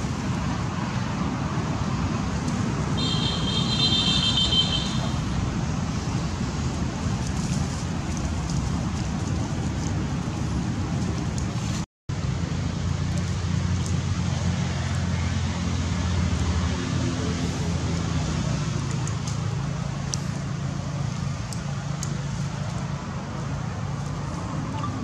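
Steady outdoor background noise with a low motor-like hum, much like distant traffic. A brief high trill sounds about three seconds in, and the sound cuts out for an instant near the middle.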